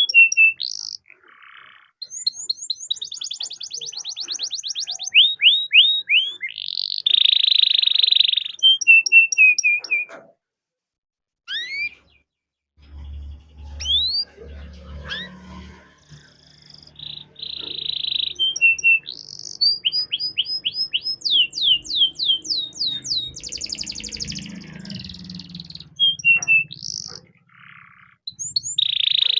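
Canary singing a long song of fast trills of rapidly repeated notes, dense buzzy rolls and sharp rising whistles, with a brief pause about a third of the way in.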